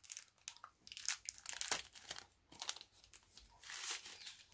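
A thin protective wrapper being peeled off and crumpled by hand around a new drone battery: irregular crinkling and crackling.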